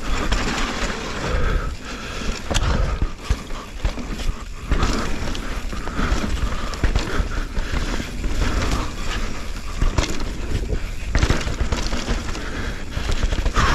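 Mountain bike riding a dirt singletrack: tyres rolling over dirt with the bike rattling and knocking over bumps, under a low rumble of wind on the helmet-camera microphone.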